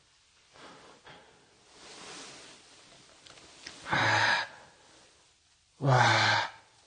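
A man's two loud, breathy sighs, about two seconds apart, the second falling in pitch, with fainter breaths before them.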